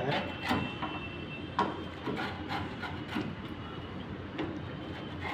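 Wheel pizza cutter rolled through a baked thin-crust pizza on a wooden board, its blade scraping and knocking on the wood in a series of irregular strokes.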